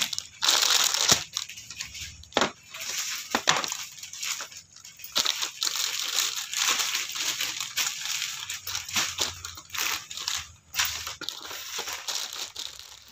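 Clear plastic polybags around children's clothing sets crinkling and crackling as they are handled, in irregular bursts.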